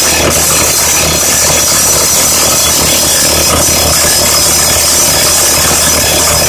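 Roxar hydraulic drifter rock drill hammering steadily into hard granite, a fast continuous rattle of blows.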